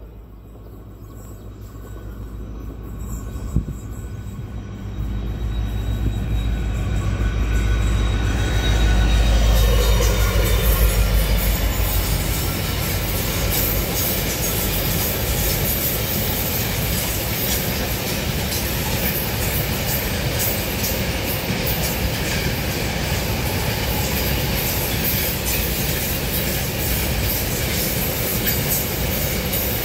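WDG-4 diesel-electric locomotive's EMD 16-cylinder two-stroke engine running under load as it approaches and passes, loudest about ten seconds in. A long container freight train then rolls steadily by, with clattering wheels and a high wheel squeal on the rails.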